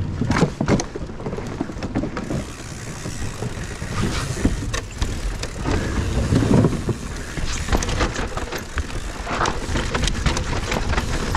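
Mountain bike rolling fast down a wooden plank boardwalk and onto a rocky dirt trail: tyres knocking irregularly over the slats and rocks and the bike rattling, with wind rumbling on the microphone.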